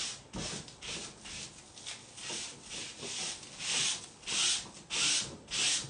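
A hand rubbing decoupage tissue paper flat onto a table top to press out wrinkles. It makes a run of swishing strokes about two a second, which get louder past the halfway point.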